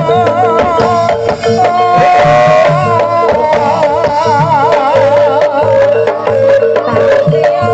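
Javanese jaranan gamelan music: hand drums beating a dense rhythm under a steady held tone and a wavering melody line with a strong vibrato.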